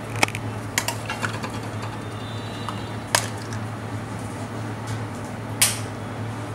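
A few sharp clacks of kitchen utensils knocking against a plastic cutting board, the loudest about a quarter-second in and near the end, over a steady low hum.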